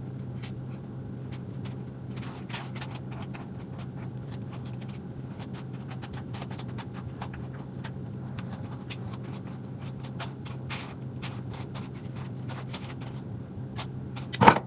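A steady low hum under scattered light scrapes and rustles from handling a wig and headband, with one sharp knock near the end.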